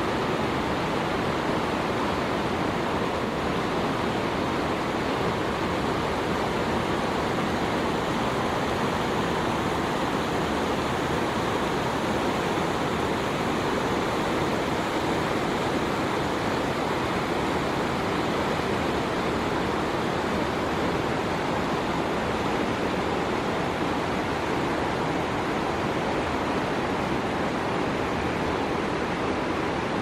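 Rushing mountain stream, whitewater tumbling over boulders in small cascades, a steady unbroken rush.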